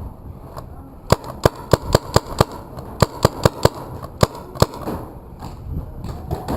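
Paintball markers firing: about a dozen sharp pops in irregular bursts, some in quick succession.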